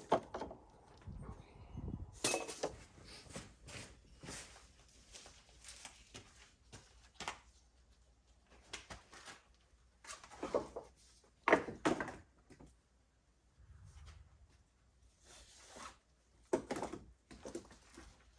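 Scattered knocks, clunks and rustles, as of things being handled and set down, with the loudest knocks about ten to twelve seconds in and again near the end.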